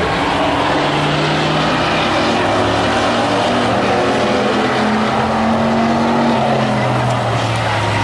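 Hobby stock race cars' engines running hard as the cars race around the oval, several engine notes overlapping, with pitches that rise and shift as the cars accelerate out of the turns.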